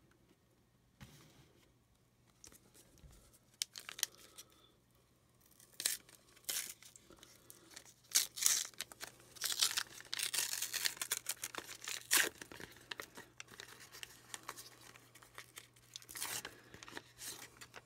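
Foil wrapper of a McDonald's Pokémon card pack being torn open and crinkled by hand. After a few faint clicks, the tearing and crinkling starts about six seconds in, comes in fits and starts, and is loudest around the middle.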